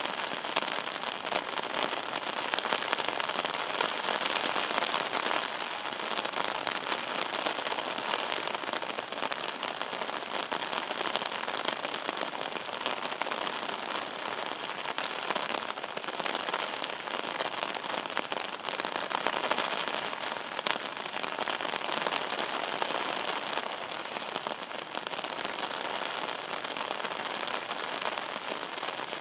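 Steady rain falling, a dense even patter of raindrops that keeps up without a break.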